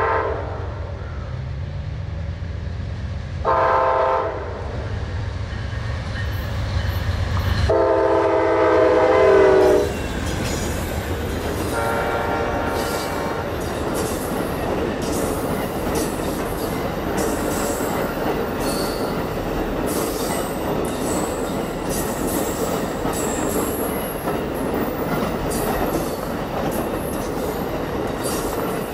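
Amtrak Auto Train passing close by: its diesel locomotives sound their multi-note air horn in several blasts, the longest about eight seconds in, over a low engine rumble. From about ten seconds on, the long train of passenger cars and auto carriers rolls past with steady wheel-on-rail noise, frequent clicks and high wheel squeal.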